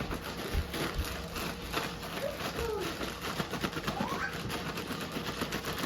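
Chocolate-and-peanut-butter-coated cereal rattling and rustling in a plastic gallon bag of powdered sugar as the bag is shaken, a fast, busy patter of small hits throughout.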